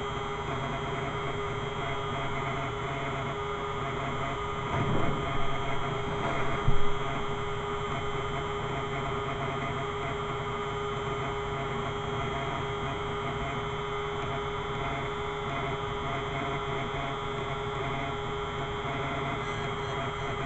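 Steady electric hum of a running power tool's motor, with a few short louder sounds about five to seven seconds in.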